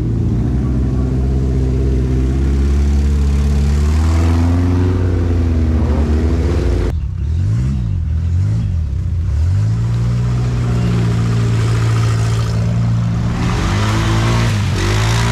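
Off-road buggy engines revving as the buggies drive through deep mud. About seven seconds in the sound cuts abruptly to another buggy's engine rising and falling in a few quick revs, then running steadily, with a quad bike's engine near the end.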